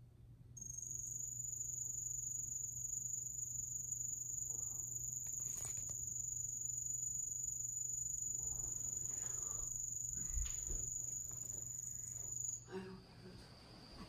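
An insect singing very loudly at close range: one continuous high, steady trill that starts about half a second in and cuts off suddenly near the end, leaving a fainter, lower insect call going on.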